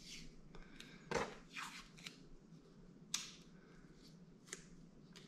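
Blue painter's tape being pulled off the roll and wrapped around the end of a trim strip: a few short, faint rasps of tape peeling, then a sharp click about three seconds in and a lighter one near the end.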